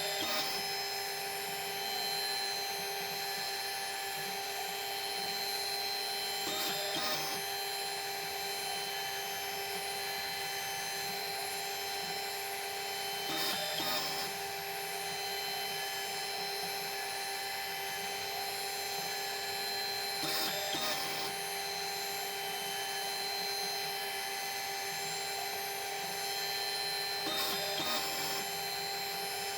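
Small machine tool motor running at a steady pitch while a radius cutter forms a 25 thou radius on the edge of a small catch part. A brief louder noise comes back about every seven seconds, four or five times, as the cut comes round.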